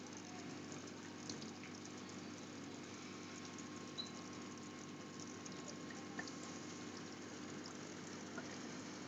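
Small aquarium pump running with a steady low hum and faint water bubbling, with a few faint ticks.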